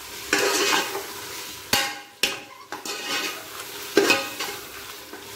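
A metal spoon stirring and scraping onion, mint and tomato masala frying in a steel pressure cooker pan, over a steady sizzle. The scrapes come louder three times: about half a second in, near two seconds, and at about four seconds. The tomatoes are being fried down into a sauce.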